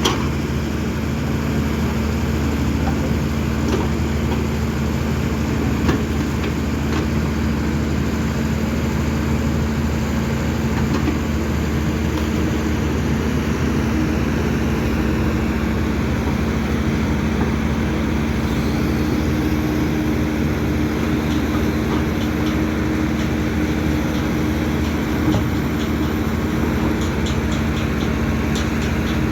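Kobelco SK210 excavator's diesel engine running steadily at a constant pitch.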